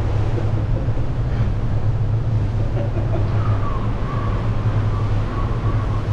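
Steady low drone of a cruise ship's engines and onboard machinery, even and unbroken.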